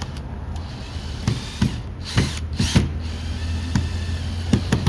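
Power screw gun driving and tightening a screw into a bracket, with a run of clicks and two short, louder rasping bursts about two seconds in.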